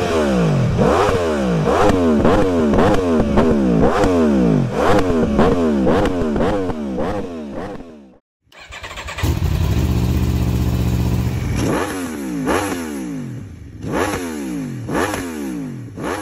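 Aprilia RSV4 Factory 1100's V4 engine revved in quick throttle blips, rising and falling about every second, through its stock exhaust. After a short cut, the engine idles steadily and is then blipped a few more times on an Akrapovič exhaust.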